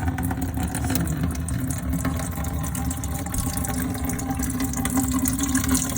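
Water running steadily from an opened toilet supply line into a container, flushing dirt out of the line before it is connected to the new fill valve.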